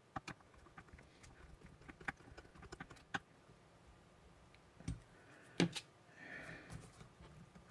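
Faint, scattered small clicks and taps of hands and a small screw working on the steel breech of a Crosman 362 air rifle as the breech screw is driven in and tightened, with a few sharper clicks in the middle.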